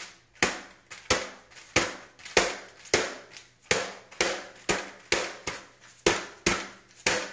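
A fist repeatedly punching upward into the plastic chin bar of a modular flip-up motorcycle helmet: sharp knocks at about two a second. Each knock tests whether the chin bar's release catches and lets it fly open.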